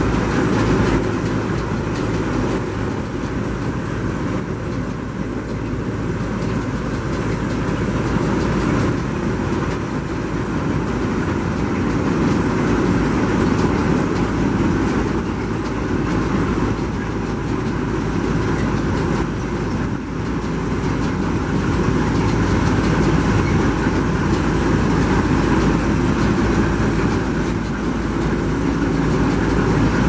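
Claas Dominator 68 combine harvester's diesel engine running steadily at idle, a continuous low mechanical rumble.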